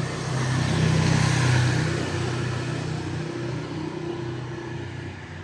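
A motor vehicle passing by, its engine growing louder to a peak about a second in and then slowly fading away.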